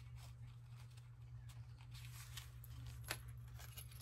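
Faint rustling of paper and ribbon being handled, with small ticks and one sharper click about three seconds in, over a steady low hum.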